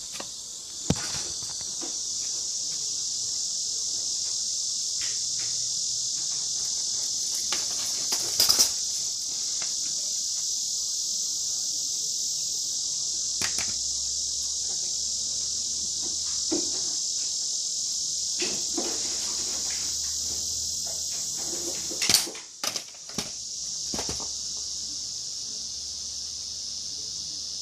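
Steady, high-pitched insect chorus droning without a break, with a few scattered knocks and rustles of handling over it, the loudest a cluster about 22 seconds in.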